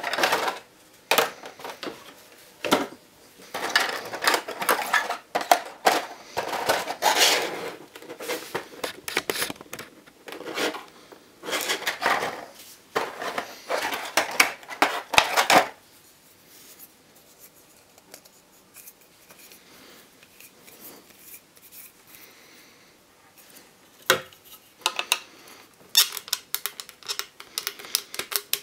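Clear plastic blister packaging being handled and pulled apart: long stretches of crinkling and crackling with sharp clicks, then a quieter gap of several seconds before a few more clicks near the end.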